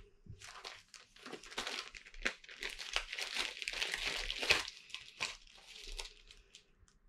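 Packaging being handled and opened: irregular crinkling and rustling, with a sharper crackle about four and a half seconds in, dying away near the end.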